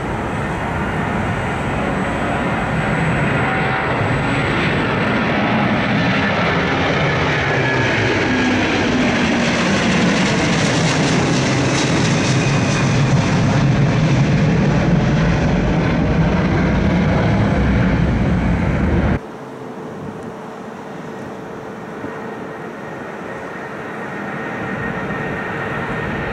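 Jet engines of a twin-engine Airbus widebody airliner climbing out after takeoff: a loud, steady roar whose pitch slides down as it passes overhead. About 19 seconds in, the sound cuts abruptly to a quieter jet sound with a steady hum, which swells toward the end as a four-engine Boeing 747 climbs toward the microphone.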